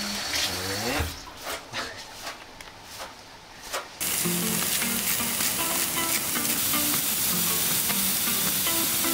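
Pork neck sizzling on a hot griddle: a steady frying hiss that starts suddenly about four seconds in. Before it, running tap water for about a second, then a few light ticks.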